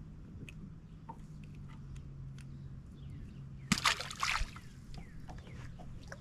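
A brief splash of water about two-thirds of the way in, over a steady low hum.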